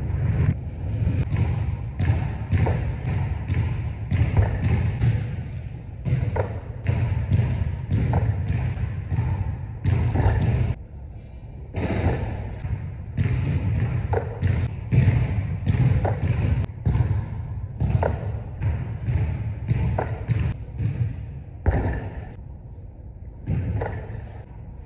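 A basketball dribbled on a hardwood gym floor, about two thuds a second, each echoing through the large hall. The bouncing pauses briefly twice.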